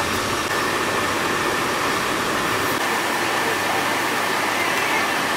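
Steady rushing road and wind noise of a moving vehicle heard from inside, with a faint steady high whine.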